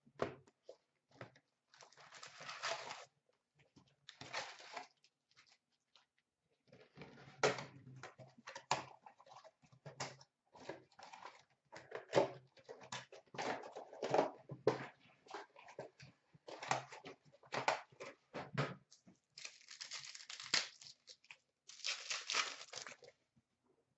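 Hockey card box and packs being opened by hand: wrappers crinkling and tearing, with rustles and light clicks of cards and cardboard. Longer tearing rips come about two seconds in and twice toward the end.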